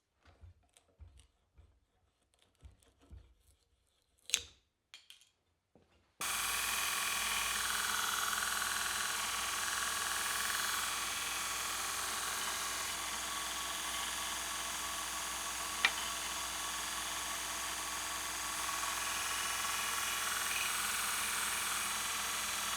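Faint scattered clicks and taps for about six seconds, then a power tool starts abruptly and runs steadily, with one sharp click partway through.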